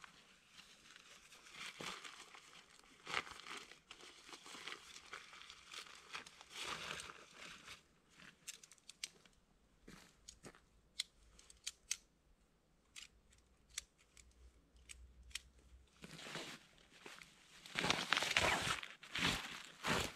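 Rustling and crinkling of a Dutch army bivy bag's fabric and camping gear being handled. In the middle come scattered light clicks while the black hoop pole is put together. Near the end there is louder fabric rustling as the pole goes into the bivy bag.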